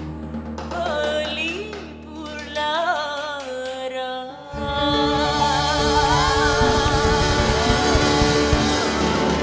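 A woman singing a slow melody into a microphone over a held chord. About four and a half seconds in, a live band with drums comes in under her voice.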